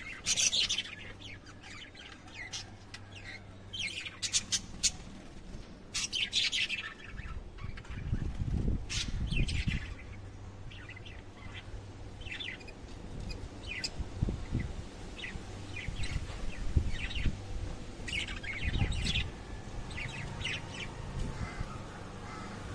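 Lovebirds chirping and squawking in short, sharp calls that come in clusters with brief gaps between them. From about a third of the way in, low rumbling bumps sound under the calls now and then.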